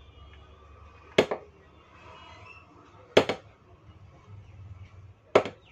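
Three sharp knocks of a hard object, about two seconds apart, each followed at once by a lighter second tap.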